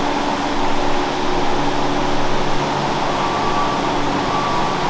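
Steady rushing noise of a pot of salt water at a rolling boil over a portable gas cooker's burner, with the flowing creek beside it.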